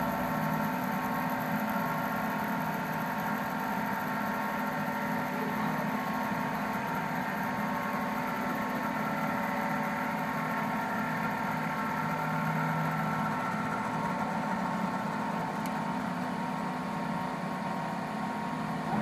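Automatic wood bead-making lathe running, its motor and spinning spindle giving a steady hum of several even tones as the cutter turns beads from a wooden dowel. A faint high whine fades out about two-thirds of the way through.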